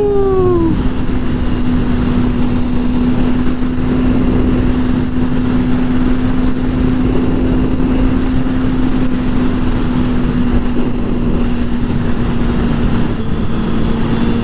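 Kawasaki ZX-25R's 249 cc inline-four with a Yoshimura R-77 exhaust, running at a steady pitch while riding, under a heavy rush of wind and road noise. In the first second a higher engine note falls in pitch and dies away.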